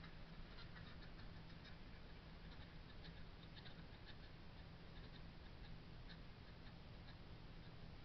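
Near silence: faint outdoor background with scattered small ticks and a steady low hum.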